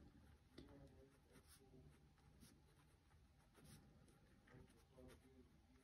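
Near silence with faint paper rustling as a cash-envelope savings binder is handled, and a man's voice heard faintly in the background now and then.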